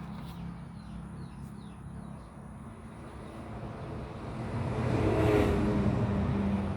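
A passing motor vehicle, its noise swelling to a peak about five seconds in and then easing off, over a steady low engine hum. A few faint, short, downward bird chirps sound in the first two seconds.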